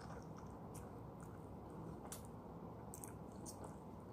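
A person chewing and sucking on a lemon wedge: faint wet mouth clicks and smacks, several scattered through the few seconds over a low steady background.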